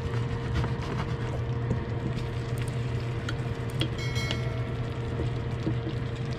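Tomato and oyster sauté cooking in a stainless steel pan, with scattered small crackles and a wooden spatula stirring gently, over a steady low hum. About four seconds in, a short bright chime from a subscribe-button animation rings over it.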